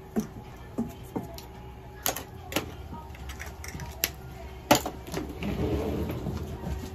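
A grooming brush worked through a long-haired cat's coat: a string of sharp clicks and taps, then a longer scratchy rustle of brush strokes near the end.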